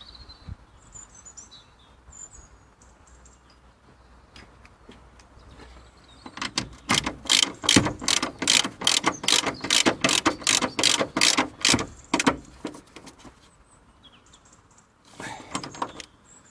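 Hand socket ratchet with an extension, worked in quick strokes: a rapid run of clicks, about three or four a second, for about five seconds starting some six seconds in, then a shorter spell near the end. It is running a bolt in while a coilover is fitted.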